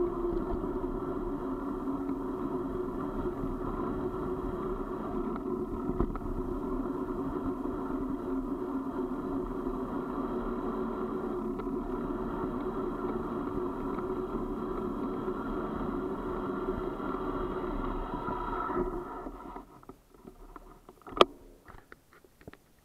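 Steady rolling noise of a vehicle moving down a paved road. About nineteen seconds in it falls away to near quiet, and a single sharp click follows.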